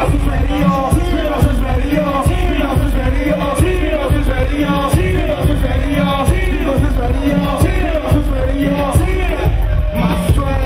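Live hip hop played loud through a PA: a steady heavy bass beat with a rapper's vocals on the microphone over it.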